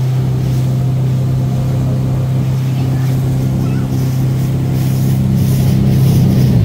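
Motorboat engine running steadily at a constant low pitch, heard from on board; its pitch drops suddenly right at the end.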